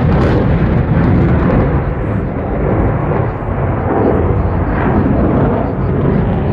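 Military jet passing overhead: a loud, steady, deep rumble of jet engine noise.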